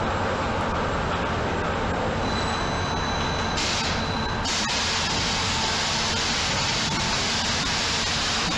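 Sheet loading cell of an Amada Vipros 358 King turret punch press with LKI loader running: a loud, steady machine hum and noise. A brief air hiss comes in about three and a half seconds in and stops about a second later.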